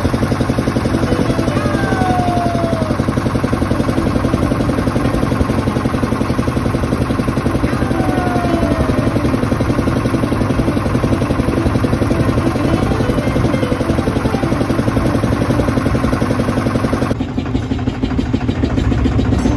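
Motorboat engine running steadily with a fast, even beat, with a few short falling gull cries over it in the first half. About 17 seconds in, the sound changes to a different engine note.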